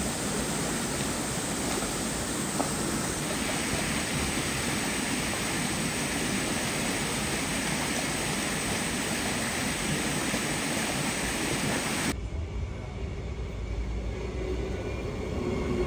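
Shallow water running over concrete steps in a steady rushing flow. About twelve seconds in it gives way to the low rumble of a railway platform, with the faint whine of an electric train pulling in near the end.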